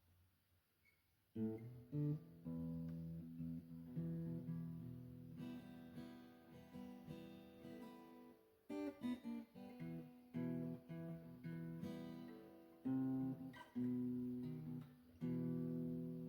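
Acoustic guitar strumming chords as a song intro, starting about a second and a half in after near silence.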